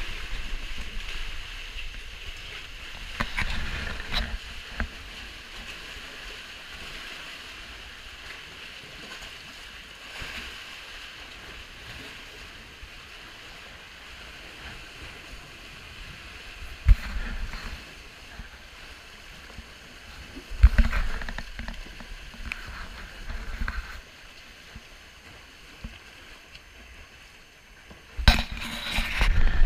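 Kayak paddle strokes: steady water lapping and swishing around the hull, with now and then a louder splash and knock, about three or four seconds in, twice around 17 and 21 seconds, and again near the end.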